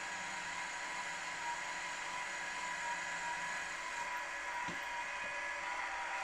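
Milling machine spindle running steadily while a small drill bit cuts into a brass bracket, with one short low knock about three-quarters of the way through.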